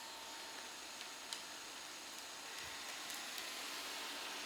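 eufy E25 robot vacuum running at a distance, a faint steady hiss of its motor and brushes, with a single sharp click about a second and a half in.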